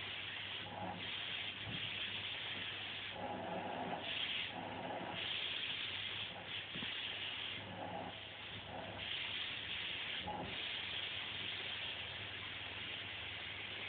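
Vacuum cleaner running, a steady hiss over a low hum, the hiss swelling and dropping back every second or two.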